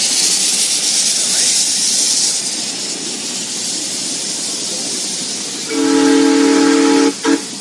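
Ride-on miniature steam locomotive hissing steam, loudest for the first couple of seconds. Near the end its whistle sounds one long chord-like blast, then a short toot.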